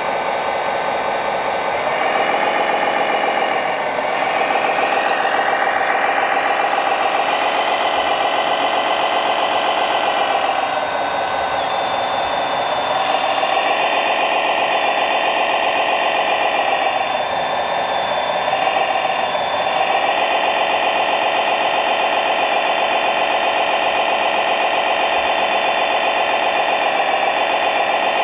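Simulated diesel engine sound of a 1/14-scale hydraulic RC wheeled excavator's sound module, running continuously through a small speaker with no deep bass, swelling and dipping several times as the machine works its arm. A thin steady high whine runs under it.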